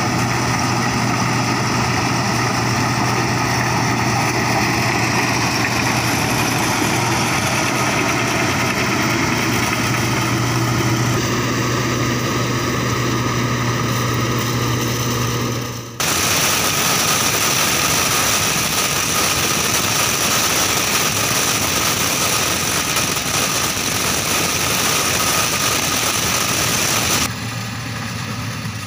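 Combine harvester engine running steadily under load while harvesting corn, with a constant low hum. About halfway through the sound changes abruptly to a hissier, steady drone, and near the end it drops to a quieter, more distant engine sound.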